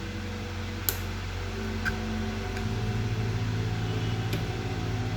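Steady low machine hum with several even tones, getting a little louder about two and a half seconds in, and three faint clicks.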